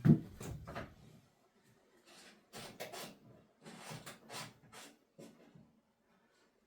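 Handling noises from fitting a hose to the back of a washing machine: a knock at the start, then short scrapes and rustles at irregular intervals.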